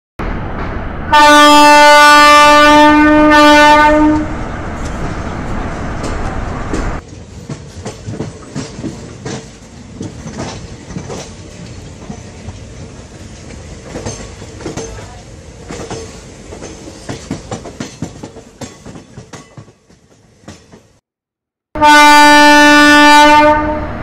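A train horn blows twice, each time a single steady tone lasting about three seconds: once near the start and again near the end. In between, train wheels clatter over the rail joints in an irregular run of clicks.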